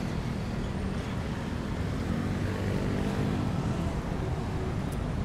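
Road traffic: motor vehicles running past on a busy road, a steady low drone of engines and tyres.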